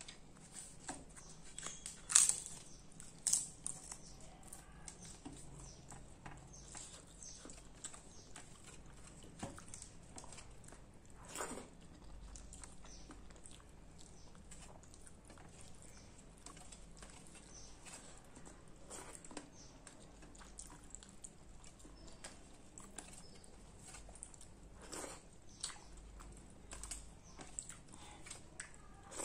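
Close-miked eating by hand: wet rice and rasam being mixed and scooped with the fingers on a steel plate, and mouth chewing and smacking, a run of small clicks throughout. A few louder sharp sounds stand out about two and three and a half seconds in and again near the middle.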